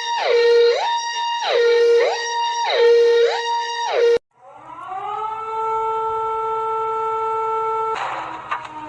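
Emergency alert siren tones: a siren sliding back and forth between a low and a high pitch a little faster than once a second, cut off suddenly about four seconds in. A steady horn-like tone then slides up and holds, ending in a short burst of hiss near the end.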